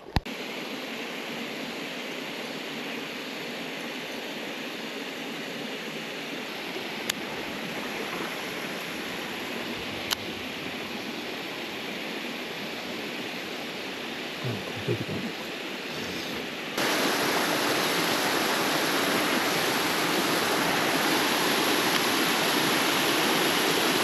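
Running water of a mountain stream, a steady rushing hiss that jumps abruptly louder about two-thirds of the way through. Two faint clicks sound in the first half.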